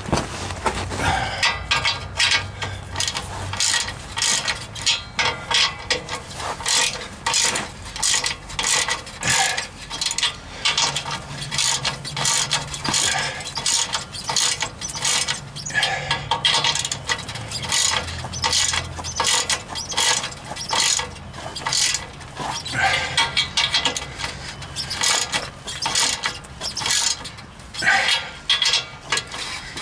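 Hand ratchet wrench clicking in runs of quick strokes with short breaks, tightening the nuts on an exhaust pipe clamp.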